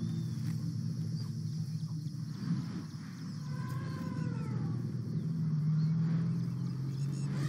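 Asian elephant giving one short call that rises and then falls in pitch, over a steady low drone.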